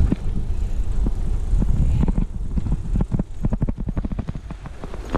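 Tandem bike rolling over a gravel and dirt path: a steady low rumble with a run of short clicks and rattles, thickest in the middle, as the bike jolts over the rough ground.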